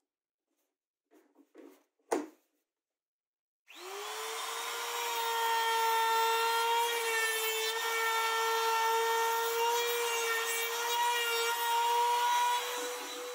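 A few light taps and one sharp hammer knock on a wooden block. About four seconds in, a compact trim router spins up to a steady high whine and runs while trimming the wooden block flush, then cuts off at the end.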